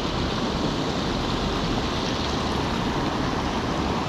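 Water pouring over a low concrete dam, a steady rushing hiss.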